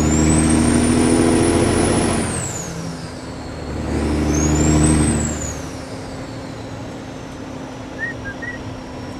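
Kenworth W900's diesel engine through loud exhaust pipes, pulling hard twice under load with a dip in between, then settling to a steadier, quieter drone. A high whistle rises and falls with each pull.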